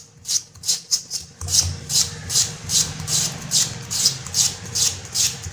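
Raw potato rubbed back and forth across the blade of a handheld plastic slicer, cutting thin slices into a bowl of water: short scraping strokes in a steady rhythm, about three a second.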